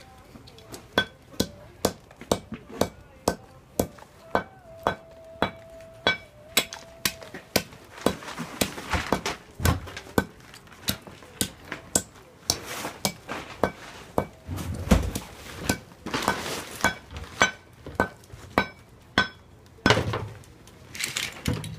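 Hammer pounding oyster shells on a small metal block, a steady series of sharp, ringing blows about two to three a second, crushing the shells into grit.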